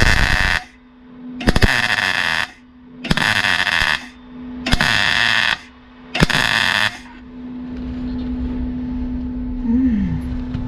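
MIG welder laying short stitch welds on a car's steel body panel: a run of crackling bursts, each under a second, about every second and a half, stopping about seven seconds in. A steady low hum runs underneath.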